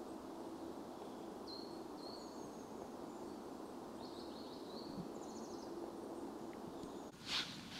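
Small forest birds giving short, high chirping calls now and then over a steady low outdoor hiss, with one brief rustle near the end.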